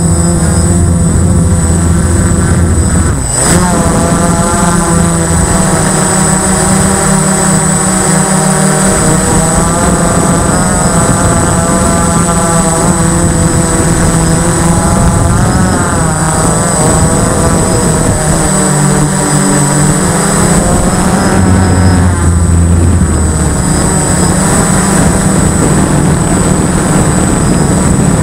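A 3DX8 RC flying wing's motor and propeller, heard from the onboard camera in flight: a steady buzz with a high whine on top, rising and falling in pitch several times.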